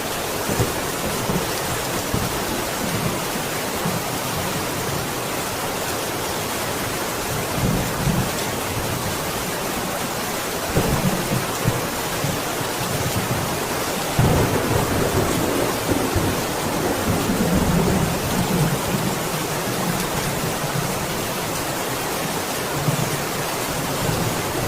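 Steady rain falling, with thunder rumbling low beneath it; the rumbles swell about eight and eleven seconds in, and a longer roll runs from about fourteen to nineteen seconds.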